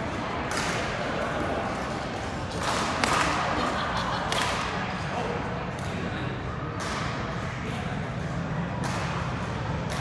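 Badminton rackets striking a shuttlecock in a doubles rally: sharp cracks at an uneven pace of about one a second, over steady crowd chatter.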